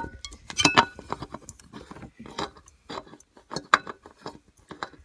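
Irregular light clicks and small metallic clinks as a new spin-on oil filter is handled and screwed onto a MerCruiser 3.0 engine's filter mount.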